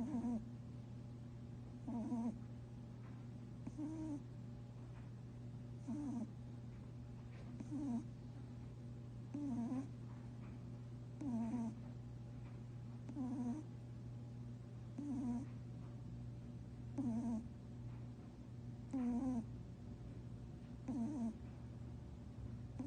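Lionhead rabbit snoring in its sleep: a short, wavering snore roughly every two seconds, about a dozen in all, over a steady low hum.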